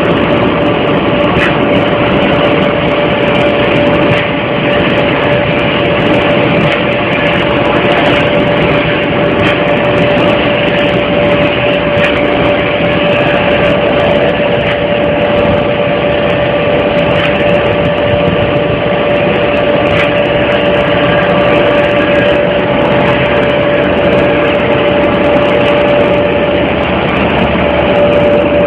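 Vertical automatic glass sandblasting machine running: a loud, steady rushing hiss with a constant droning tone under it and scattered sharp ticks.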